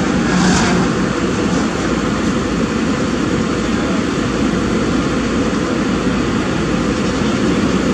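Kobelco SK200 hydraulic excavator's diesel engine running steadily as it works the boom and bucket.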